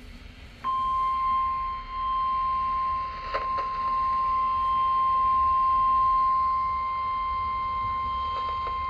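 NOAA Weather Radio warning alarm tone: a single steady tone of about 1050 Hz that comes on just under a second in and holds without a break, the signal that a warning message follows.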